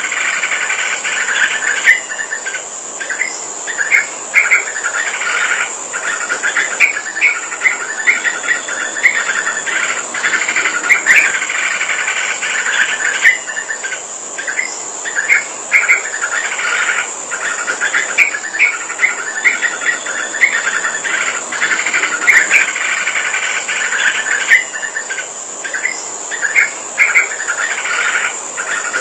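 Yellow-vented bulbul singing, with short bubbly phrases repeated again and again with brief gaps between them. A steady high-pitched insect trill runs underneath.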